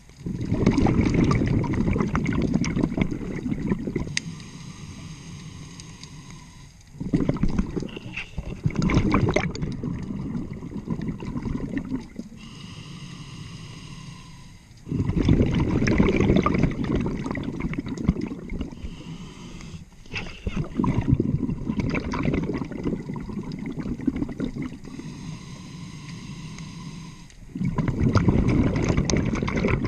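A scuba diver breathing through a regulator underwater. There are five loud bursts of exhaled bubbles rushing and gurgling out, about one every six seconds, and between them quieter inhalations through the regulator, with a faint hiss and thin tones.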